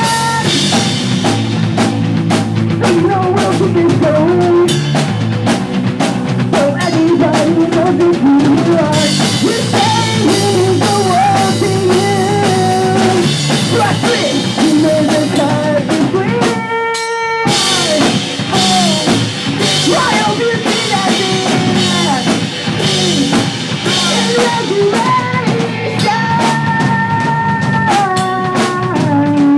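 Pop punk band playing live: drum kit, electric guitars and sung vocals. The band stops for a moment about halfway through, leaving a held note, then comes back in.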